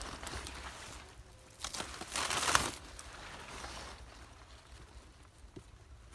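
Close rustling and crinkling from a person moving in tall grass and handling fishing tackle, loudest for about a second near the middle, with a few light clicks.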